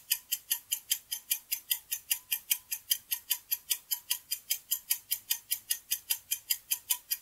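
Countdown timer sound effect: a clock ticking fast and evenly, about four sharp ticks a second.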